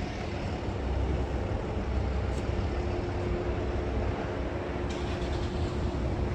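Steady low rumble of motor-vehicle noise, with a faint steady hum joining about three seconds in.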